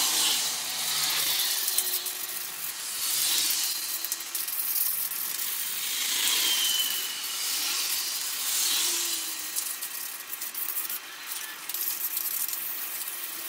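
Fine 1,000-grit sandpaper rubbed by hand over a Ford Fusion Sport's front brake caliper: a scratchy rasping that swells and fades with each stroke.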